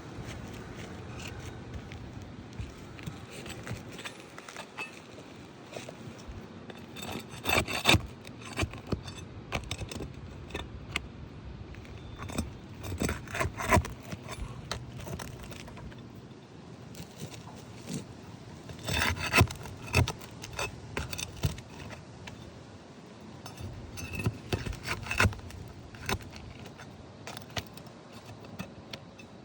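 Roofing nails being worked out from under asphalt shingles: scraping and rubbing against the shingles, with several bursts of sharp metallic clicks and clinks from the tool and nails.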